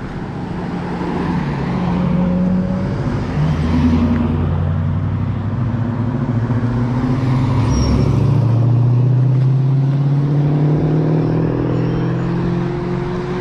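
A motor vehicle's engine running close by, swelling in over the first couple of seconds and staying loud, its pitch slowly rising in the second half as it speeds up.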